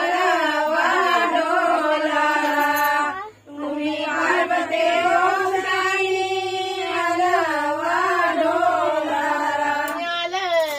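Women's voices singing a slow traditional Gauri devotional song, long held notes that waver in pitch, with one short pause for breath about three seconds in.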